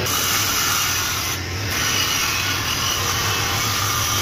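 Table saw running and cutting a wooden panel as it is fed across the blade: a steady motor hum under the hiss of the blade in the wood.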